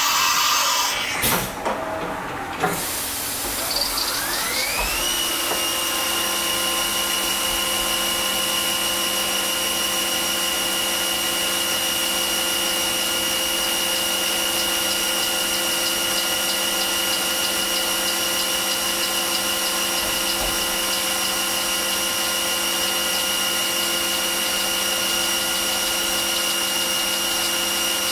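Fadal CNC mill changing tools with a few sharp clunks, then its spindle spinning up with a rising whine about four seconds in. The spindle then runs at a steady high whine over a constant hiss while a single-lip 45-degree HSS chamfer tool deburrs the top of a plastic part.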